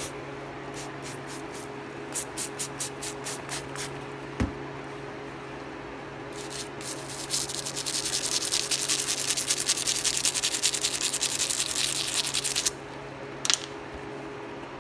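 Rhythmic rubbing strokes, two to three a second, then a steady hiss lasting about six seconds, over a constant low hum.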